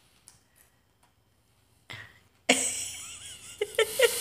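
Laughter: after a mostly quiet start, a sudden breathy burst about two and a half seconds in, then a quick run of short 'ha' pulses.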